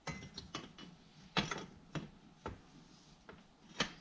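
Metal clinks and knocks of a snowmobile skid's rail being shifted and fitted into place: a string of irregular taps, with two louder knocks about one and a half seconds in and near the end.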